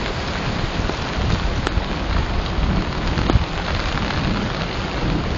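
Steady rushing noise of water, from rain and flooding water, with two faint ticks partway through.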